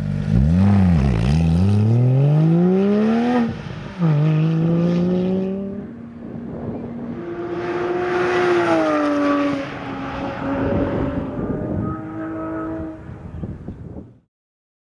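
Porsche 911 GT3's flat-six engine accelerating hard on track: the revs climb, fall at a gear change about four seconds in, and climb again. Later the car passes by with a rise and fall in pitch, and the sound cuts off suddenly near the end.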